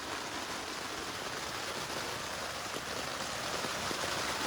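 Heavy rain pouring down on a tent pitched without its rain fly: a dense, steady hiss of drops on the fabric.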